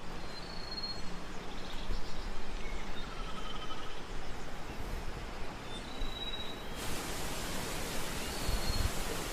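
Steady wind and sea-surf noise on an open beach, with a few faint, short high whistles.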